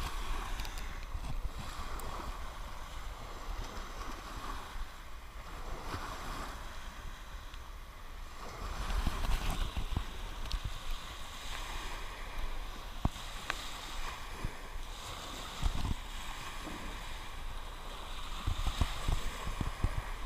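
Small waves washing up on a sandy beach, with wind buffeting the microphone as a low rumble. A few short knocks scattered through.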